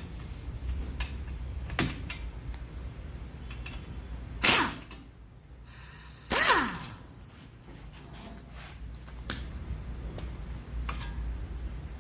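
Tools working loose the front brake caliper's 17 mm mounting bolts: scattered metal clicks and clanks, with two short louder bursts a little under halfway through, the second falling in pitch.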